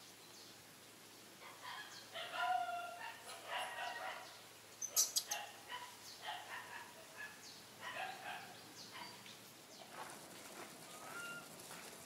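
Macaques calling: a run of short, high, pitched cries in clusters, loudest around two to five seconds in, with a few sharp clicks about five seconds in.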